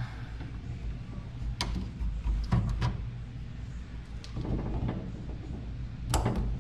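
Hand tools and metal parts being handled while fuel-line hoses are worked loose: a few scattered sharp clicks and knocks, then a short clatter near the end, over a low steady hum.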